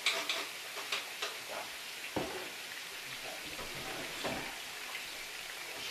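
Meatballs sizzling in a frying pan, a steady hiss with a few sharp clicks of a utensil early on and two duller knocks about two and four seconds in.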